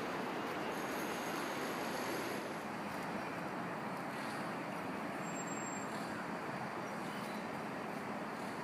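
Steady road traffic noise, an even wash with no distinct events.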